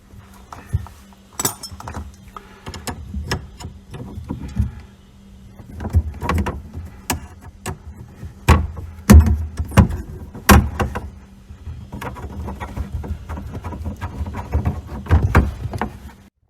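Metal plumbing fittings and tools clinking, knocking and scraping under a sink as a tee fitting is unscrewed from the cold-water supply line, in irregular sharp clicks and clanks, over a faint steady hum. Everything cuts off suddenly near the end.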